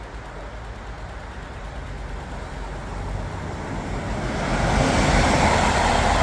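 Newag Dragon 2 freight locomotive and its wagons approaching and passing at speed. The rolling rumble grows steadily louder and is loudest from about four and a half seconds in, as the wagons go by.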